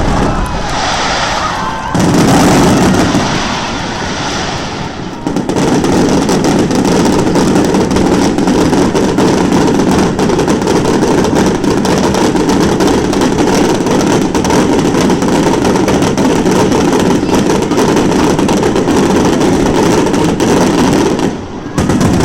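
Fireworks 'star mine' barrage of rapid-fire shells launched in a computer-timed sequence. A couple of big bursts open it, then from about five seconds in comes a dense, continuous stream of booms and cracks that stops abruptly near the end.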